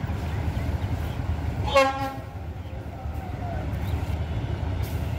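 Diesel coach engine running low and steady as the bus creeps forward, with one short horn blast about two seconds in.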